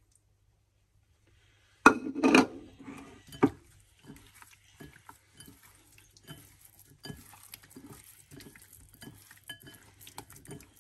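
Dishes clattering against a glass mixing bowl about two seconds in, then light clinks and taps as raw fish pieces are coated with ground spice masala.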